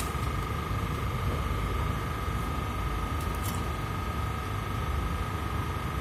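Steady machine-like background hum with a constant thin whine, and a few faint light clicks about three and a half seconds in.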